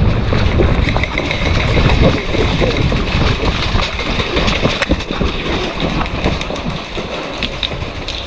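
A player running over dirt and leaf litter: quick footsteps and jostling gear, with wind rumbling on the head-mounted camera's microphone.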